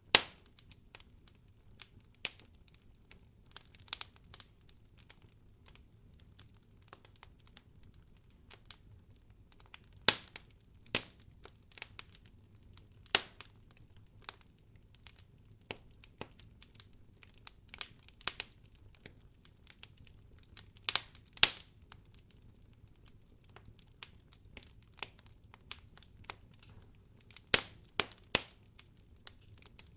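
Campfire of burning firewood crackling, with irregular sharp pops. A few pops stand out louder, two close together about twenty-one seconds in and two more near the end.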